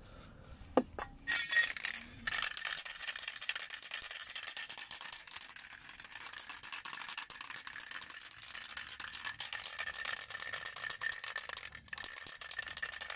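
Aerosol spray paint can being shaken hard, its mixing ball rattling rapidly and continuously inside, after a couple of separate clicks about a second in.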